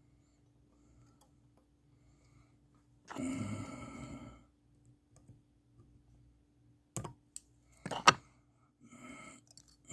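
A man sighs heavily close to the microphone about three seconds in. Later come a few sharp clicks from his fly-tying tools, the loudest near the end, followed by a softer breath.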